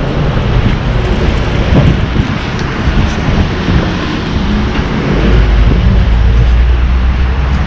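Strong wind buffeting the microphone over street traffic noise; a heavier low rumble sets in about five seconds in.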